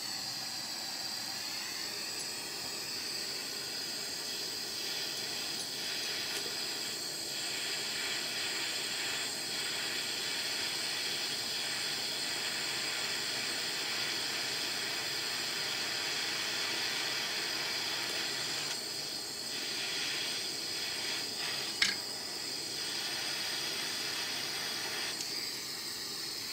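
Handheld butane torch burning with a steady hiss as it heats a small metal part held in pliers. A single sharp click or tap comes about four seconds before the end.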